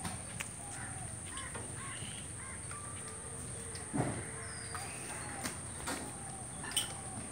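Animal calls over steady outdoor background noise, with a few sharp knocks and a louder thump about four seconds in.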